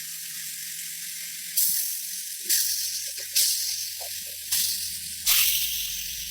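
Hissing spray let out in repeated bursts, about five, each starting sharply and easing off, with a low hum underneath from about halfway.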